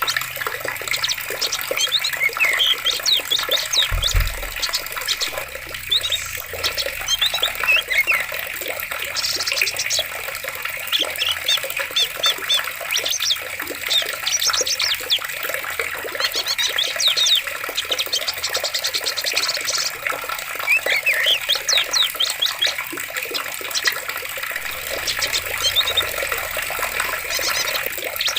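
Steady rush of flowing water with many small birds chirping and trilling over it. There is a brief low thump about four seconds in.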